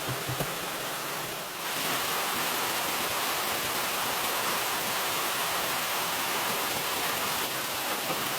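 Steady hiss of rain or running water, stepping up in loudness about two seconds in. A few soft low knocks come at the start.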